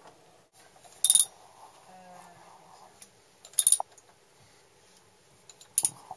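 Three sharp metallic clinks about two and a half seconds apart: metal knocking on metal.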